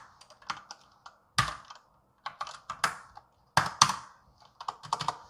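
Typing on a computer keyboard: irregular key clicks coming in short runs with brief pauses between them.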